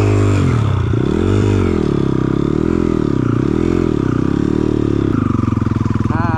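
Dirt bike engine revving up and down several times as the throttle is worked at low trail speed, then running steadier for the last second or so.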